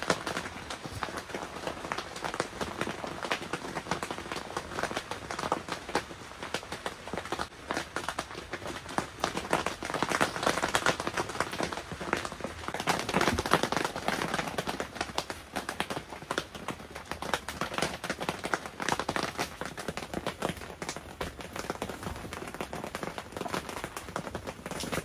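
Rain falling on the fabric of a clear tent, heard from inside: a dense, irregular patter of drop ticks with no let-up.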